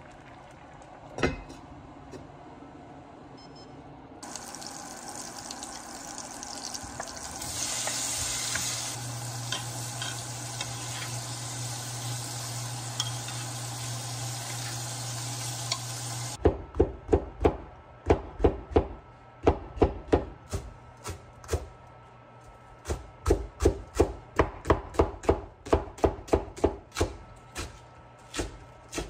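Abalone sizzling in butter, a steady hiss that stops suddenly about halfway through. Then a cleaver-style knife chopping green onions on a cutting board, about two sharp chops a second, with a short pause before the chopping resumes.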